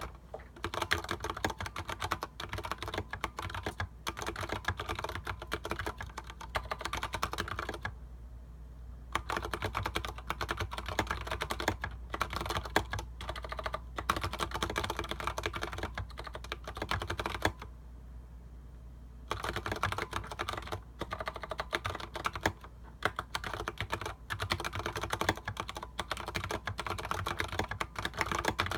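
Typing on a Leopold FC750R PD mechanical keyboard with tactile Cherry MX Clear switches and PBT SA-profile keycaps: fast, continuous keystroke clatter, broken by two short pauses about eight and eighteen seconds in.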